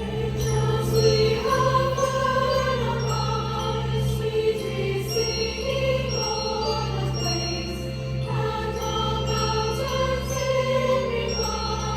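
Large choir singing a Christmas carol with orchestral accompaniment, sustained sung notes over a held low bass note.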